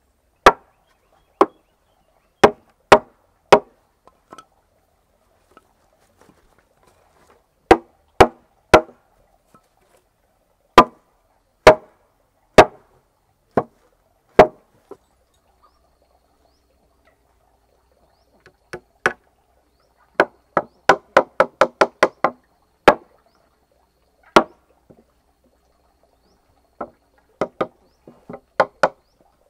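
Sharp knocks of solid wood being struck as boards are fitted into the notched joints of a wooden bed frame. The strikes come singly about a second apart in small groups, with a fast run of about ten taps roughly two-thirds of the way in.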